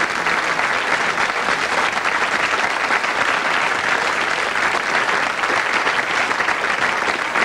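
Studio audience applauding, a steady even clapping of many hands.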